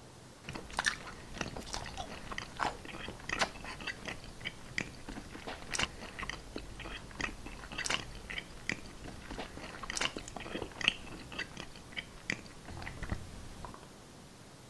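Staged eating sounds of biting into and chewing the clay burger: a rapid, irregular run of crunches and mouth clicks that stops about a second before the end.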